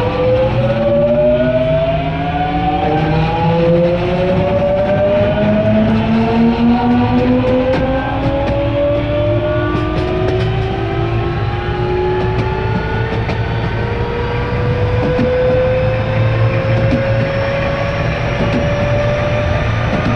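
Toshiba GTO-VVVF inverter and traction motors of a JR West 207 series 1000 subseries motor car under acceleration. Several whining tones climb steadily in pitch together as the train gains speed, over the low rumble of the running gear. This unit is known as an odd-sounding car for its inverter sound.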